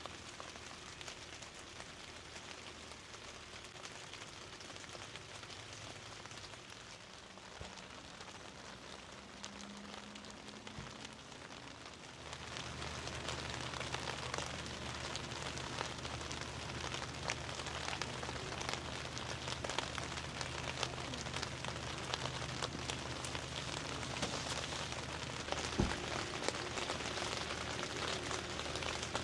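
Steady rain falling and pattering on surfaces. About twelve seconds in it grows louder and a low steady hum joins it, and there is a single short knock near the end.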